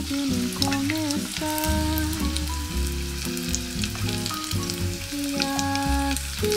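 Oil sizzling and crackling steadily around breaded croquettes shallow-frying in a small pot. Background music with a melody and bass plays along.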